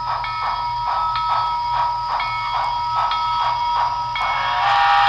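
Paragon3 sound system of an HO scale USRA Heavy Mikado model steam locomotive playing rhythmic exhaust chuffs, about two a second. A little after four seconds the chuffing gives way to a louder steam hiss carrying a steady tone.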